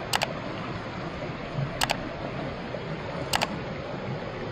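Three sharp double clicks, about one and a half seconds apart, over a steady background hiss. They are the mouse-click sound effects of a subscribe-button overlay.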